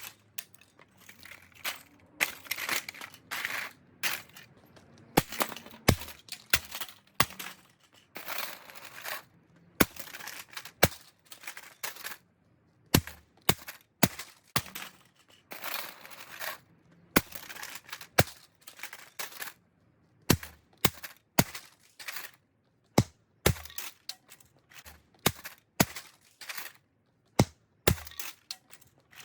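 Cheap robot vacuum cleaner being pulled apart by hand: irregular sharp snaps and clicks of plastic and small parts, with scraping and rattling in between.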